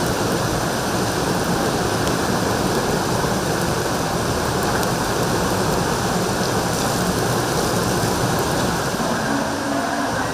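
Steady, unbroken rush of water, heavy rain or floodwater, with no pauses or distinct events.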